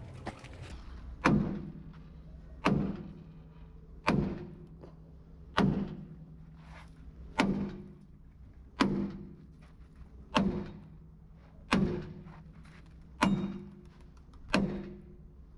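Hammer blows on metal: ten evenly spaced strikes about one and a half seconds apart, each with a short low ring, typical of beating a steel truck frame.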